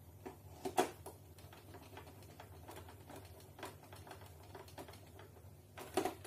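A small hand screwdriver drives the body screws into an RC touring car's chassis, with scattered light clicks and taps. A sharper click comes about a second in and a louder cluster of clicks near the end.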